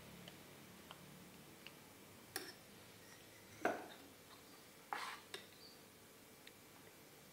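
Metal spoons clinking and tapping against enamel bowls and a cake tin as batter is scooped and poured. A few light ticks, then several sharper clinks in the middle, the loudest about three and a half seconds in.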